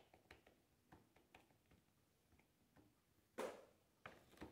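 Near silence with faint, scattered small clicks and taps as a small dog noses at dog treats on a plate, and one louder short sniff about three and a half seconds in.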